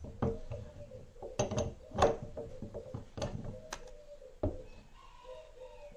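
Hand pop-rivet tool being squeezed on a rivet set in a drilled metal strip: a run of sharp metallic clicks and clacks from the handles and jaws, loudest about two seconds in, with another knock near the end.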